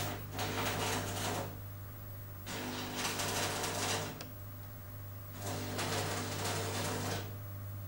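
Manual metal arc (stick) welding arc crackling in three bursts of about a second and a half each, with short pauses between them: three tack welds fixing a steel table leg to the frame.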